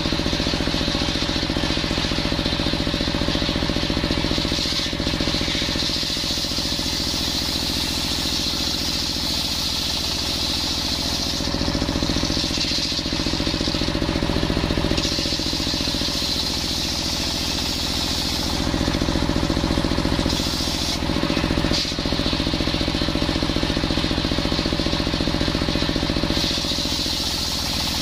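Engine-driven circular saw bench running steadily while ripping coconut wood lengthwise, its high cutting hiss swelling several times as the plank is fed into the blade.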